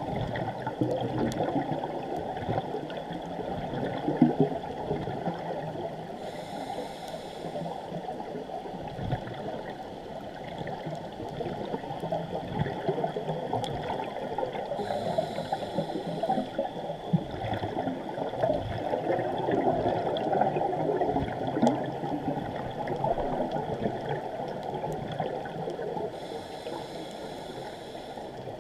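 Scuba diver's breathing heard underwater through a GoPro housing: a constant rush and gurgle of water and exhaust bubbles, broken three times, about ten seconds apart, by a short regulator hiss on the inhale.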